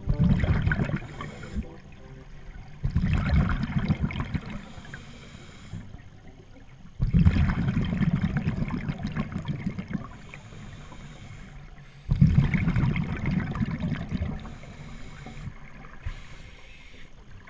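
Scuba diver breathing underwater through a regulator: four exhalations, each a bubbling rumble lasting one to three seconds, with short hissing inhalations between them.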